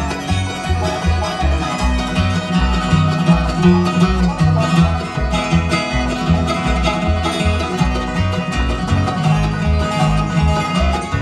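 Bluegrass band playing an instrumental break, banjo picking to the fore over guitar, with a steady walking bass pulse underneath.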